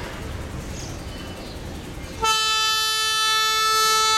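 Darjeeling Himalayan Railway toy train's locomotive horn sounding one long, steady blast that starts about halfway through, over a background rumble.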